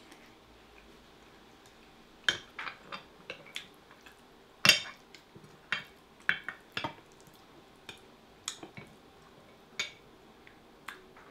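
A ceramic soup spoon and wooden chopsticks clinking and scraping against a glass food container as curry and rice are scooped up: a string of short, sharp clicks and knocks, the loudest a little before halfway.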